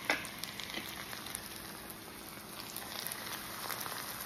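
Chopped onion and tomato frying in a nonstick pan: a steady sizzle with scattered small pops, and one sharp click right at the start.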